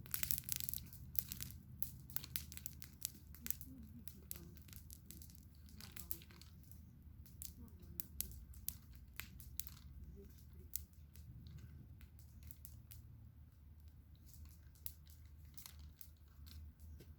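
Campfire crackling: irregular snaps and pops of burning wood over a low steady rumble, the snaps coming thickest in the first second or so.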